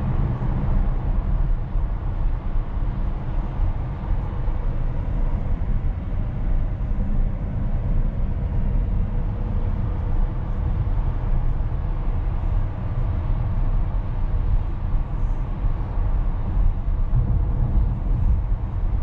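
Tesla Model S Plaid driving, heard from inside the cabin: a steady low rumble of tyre and road noise.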